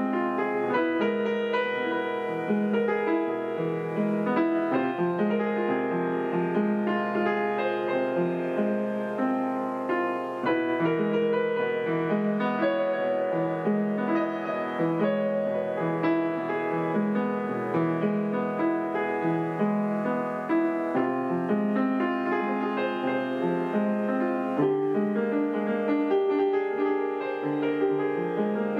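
Acoustic upright piano played solo: a continuous flow of chords and melody notes without a break.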